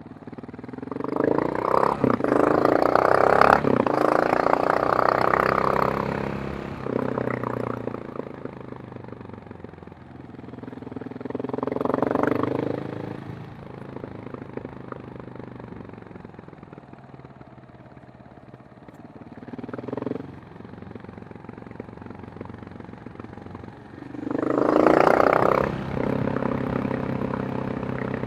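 KTM 690 Enduro R single-cylinder engine and exhaust, rising in revs four times: a long pull near the start, shorter ones near the middle and a last one near the end, dropping back to a lower steady beat between.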